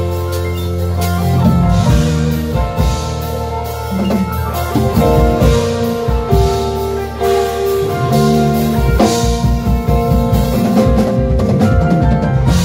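Live band playing a slow jazz-gospel passage: a keyboard holds lush extended chords (F major 7 add 9, then B-flat add 9 over D) over bass and guitar, with a drum kit keeping time.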